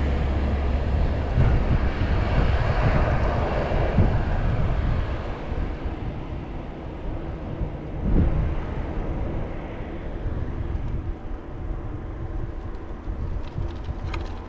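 Wind and road noise from a bicycle ride, picked up by an action camera: a steady rush with heavy low rumble, slowly fading, with a brief swell about eight seconds in.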